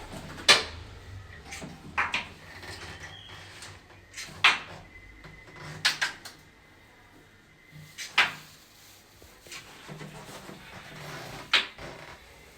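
A series of sharp, separate knocks and clunks, about six of them a second or two apart, like hard objects being handled or set down. A faint steady high tone sounds for a few seconds midway.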